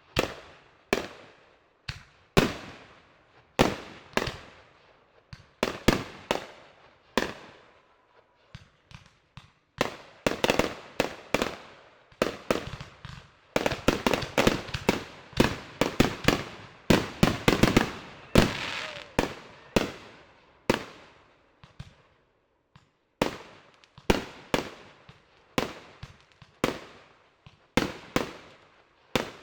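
Fireworks going off: a long run of sharp bangs, each with a short echoing tail, irregular at first, then a dense rapid volley in the middle, then bangs about once a second near the end.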